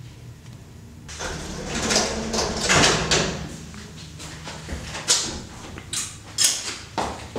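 A rushing noise swells for about two seconds and fades. Then comes a run of sharp clicks, about one every half second near the end, as lift call buttons are pressed.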